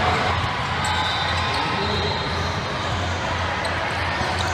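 Basketball bounced on a hardwood court during a free-throw routine, over a steady low hum and the general noise of a gym hall.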